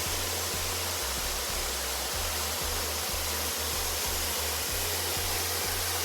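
Loud, steady rush of a waterfall heard close up from behind the falling water. A low bass line of background music changes note about every half second underneath.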